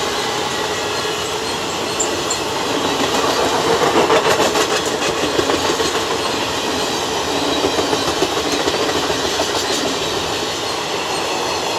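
Coaches of an Indian Railways express train passing at speed: a steady rushing rumble of wheels on rail with a rhythmic clickety-clack of wheels over the rail joints, swelling a little about four seconds in.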